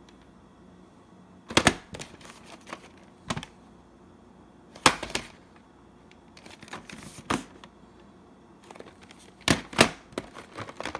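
A VHS tape in a cardboard sleeve handled against a wooden tabletop: clusters of sharp taps, knocks and rustles as it is turned over and set down, in several short groups.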